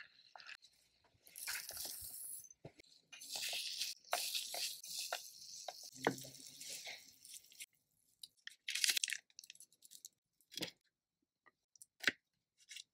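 Puffed grains for a miniature gangjeong being worked by hand in a tiny pan or bowl: rustling and scraping in bursts for the first seven seconds or so, then a few separate sharp taps and clicks.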